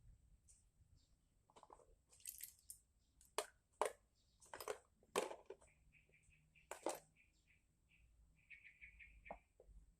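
Light clicks and knocks of small carburettor parts being handled, about five sharp ones in the middle. A bird chirps runs of quick, high, repeated notes in the second half.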